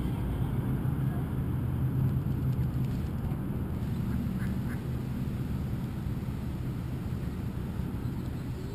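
Mallard ducks quacking faintly a few times over a steady low outdoor rumble.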